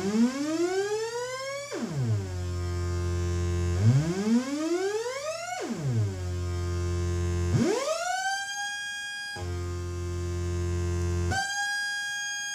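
Future Sound Systems Brunswick DIY synthesizer playing a low buzzy drone. Twice it swoops up in pitch over about two seconds and drops sharply back. Then twice it leaps quickly to a higher held note for nearly two seconds before falling back to the drone.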